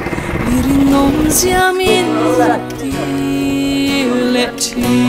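A motorboat's engine drones for about the first second and a half, then cuts off abruptly. A song takes over: a singing voice over sustained chords.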